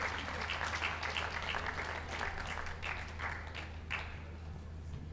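Crowd applauding with scattered hand claps, dying away about four seconds in.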